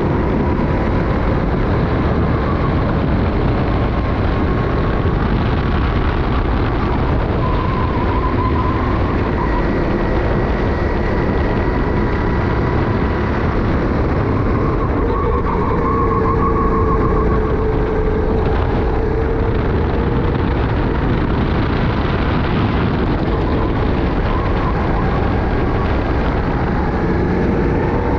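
Sodi racing kart engine running at race pace, its pitch rising and falling through the corners, under a steady rush of wind on a helmet chin-mounted camera.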